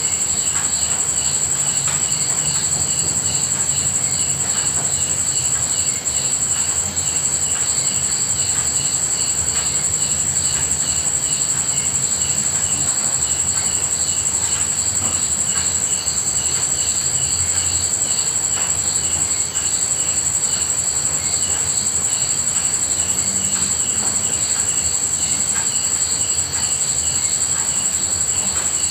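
Night chorus of crickets: a continuous high, pulsing trill, with a fainter chirp repeating steadily about two to three times a second.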